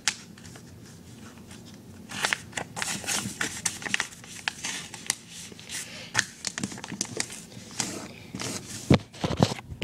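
Sheet of computer paper being folded and creased by hand, with irregular crinkling and sharp rustles as the fold is pressed down.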